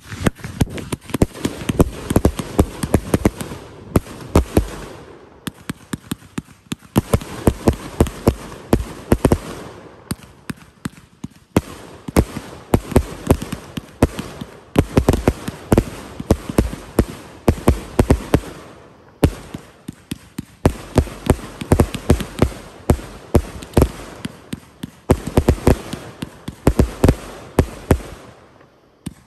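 Aerial fireworks launching and bursting in rapid succession, several loud bangs and pops a second, with a few brief lulls between volleys.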